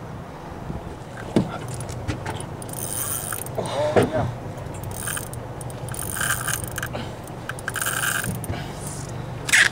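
Large spinning reel working under the load of a hooked fish, giving several bursts of mechanical buzzing. A low hum runs underneath, and a man calls out once about four seconds in.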